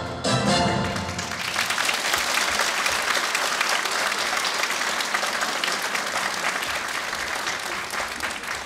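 The dance music stops about a second in, and an audience applauds for the rest, easing off slightly near the end.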